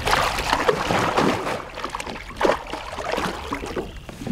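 Water splashing and sloshing as a musky thrashes in a landing net beside the boat while hands work in the water to grab it. The splashing is heaviest in the first second or so, with another splash about two and a half seconds in.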